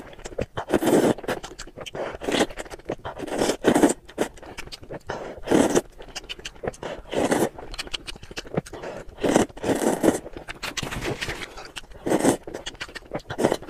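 A person slurping wide noodles from a bowl of broth: about a dozen short, loud slurps, one every second or so, with quieter mouth sounds between.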